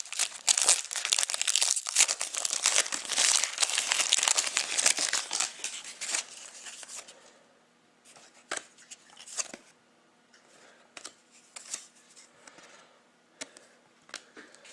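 A trading-card pack's wrapper being torn open and crinkled, with dense crackling for the first six or seven seconds. It then goes quiet apart from a few light clicks and taps of cards being handled.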